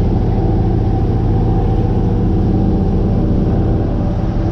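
Engine running steadily at constant speed, a low, even drone.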